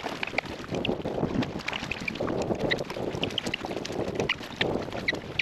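Paddle strokes on an Anfibio Rebel 2K packraft: water splashing and dripping off the paddle with swells of splashing about once a second, and wind buffeting the microphone.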